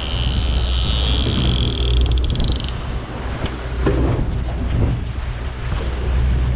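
Outboard motor of a small aluminium boat running steadily under way, with water rushing past the hull and wind on the microphone. A high-pitched whine stops abruptly under three seconds in.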